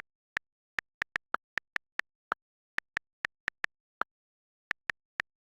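A series of about twenty short, sharp clicks at an uneven pace, each one high and brief, over dead silence.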